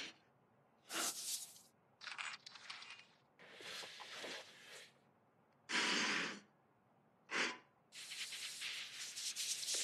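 A hand file rasping across steel in about five separate strokes, each under a second long, with quiet gaps between. About eight seconds in, a longer continuous scraping hiss begins.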